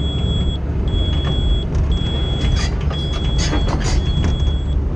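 Tracked logging machine's engine and hydraulics running heard from inside the cab, a steady heavy rumble. A high beep repeats about once a second throughout, and a few short scrapes or cracks come in the middle.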